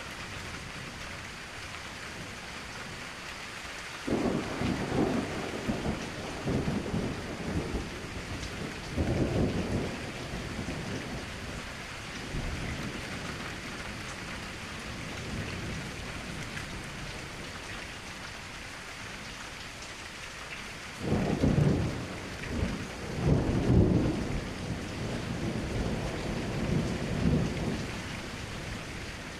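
Heavy rain falling steadily, with two spells of low, irregular rumbling several seconds long, the first about four seconds in and the second about twenty seconds in.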